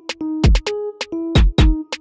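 Electronic backing music: a drum-machine beat with deep, falling kick drums and sharp claps or snaps over held keyboard notes.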